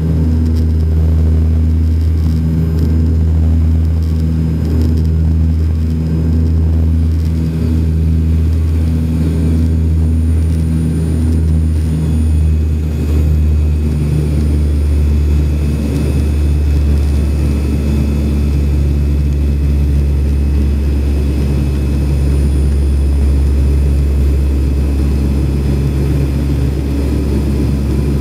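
Cabin noise of an ATR twin turboprop climbing after takeoff: a loud, steady low propeller hum with engine tones above it, heard from a seat beside the engine.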